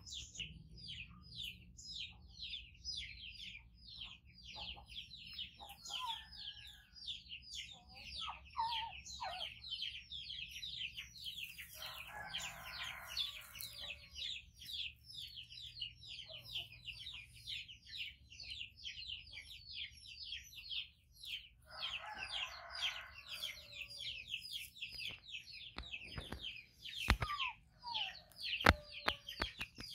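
Bird chirping steadily: short, high, falling chirps at about four a second. Twice, for about two seconds each, a lower call sounds beneath it, and a few sharp clicks come near the end.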